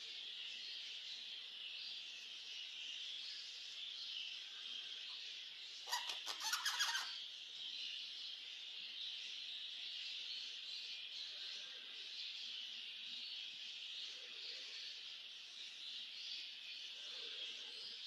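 Budgerigars chattering: a steady, high, busy warble of many birds. About six seconds in comes a short burst of rapid, louder squawking calls.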